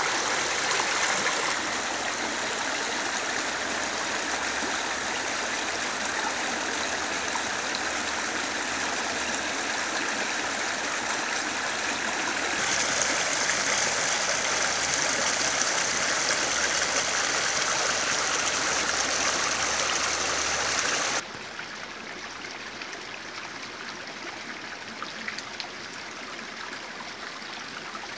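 Shallow river flowing over stones and gravel: a steady wash of water. It changes abruptly in level and brightness twice, and drops clearly quieter about three-quarters of the way through.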